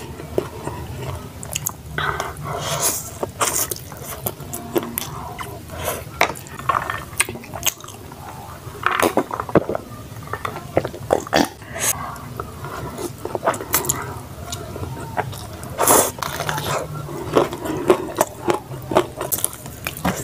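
Close-miked eating sounds: slurping instant noodles, chewing and wet lip smacks in irregular clicks, with swallows from a drink about halfway through.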